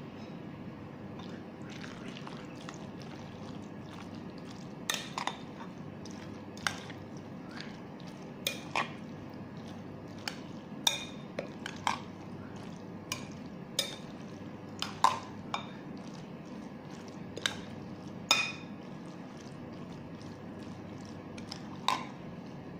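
Metal spoon stirring creamy macaroni salad in a glass bowl: a wet squishing, with repeated sharp clinks of the spoon against the glass at irregular moments, over a steady low hum.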